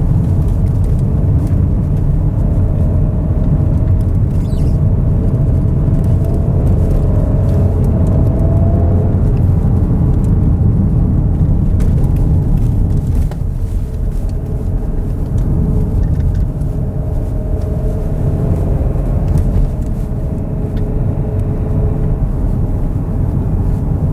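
Porsche Cayenne's base turbocharged V6 petrol engine heard from inside the cabin, driven hard in Sport Plus mode. Its note climbs for several seconds, eases about halfway through, then climbs again over a steady road and tyre rumble, with some squeaking from luggage in the boot.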